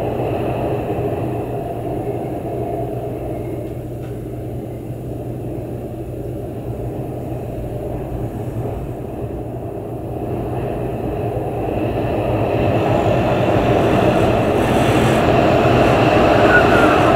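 Heavy winter storm winds blowing, a continuous deep rushing rumble that swells louder in the second half.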